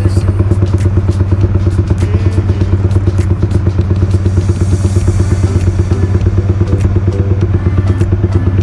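Tuned Honda RS150R's single-cylinder engine idling steadily, with a fast even beat.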